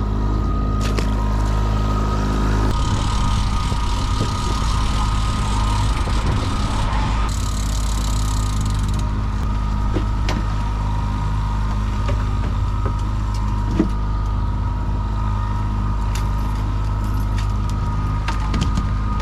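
Boat's outboard motor running steadily at slow trolling speed. A hissing noise joins it for several seconds from about three seconds in, and there are a few short clicks near the end.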